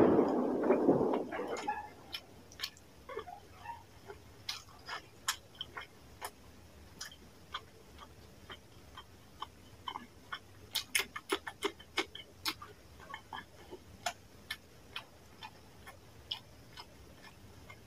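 Close-miked eating sounds of a person chewing a handful of fish curry and rice: a louder wet mouthful noise in the first two seconds, then irregular sharp wet clicks and lip smacks of chewing, coming thicker about eleven seconds in.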